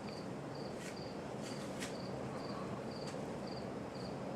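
Casablanca Delta I ceiling fan running on high with a steady whoosh of motor and moving air. Over it, a cricket chirps in short trills about twice a second.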